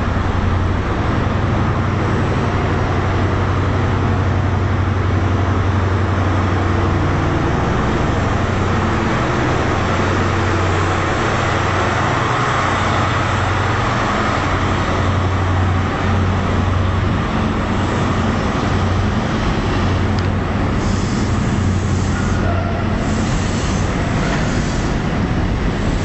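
A Class 43 HST power car's diesel engine gives a steady low drone as the train pulls slowly past under the station roof. The drone eases near the end as the coaches roll by with lighter rolling noise.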